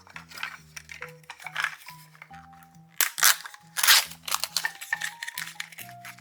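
Background music with crinkling and rustling handling noises from a toy's packaging being unboxed. The loudest bursts come about three and four seconds in.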